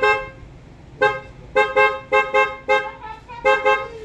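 Newly fitted electric horn on a Suzuki Smash 110 motorcycle, wired through a relay, being tested with about nine short toots. The toots come singly and in quick runs, each sounding two close pitches together.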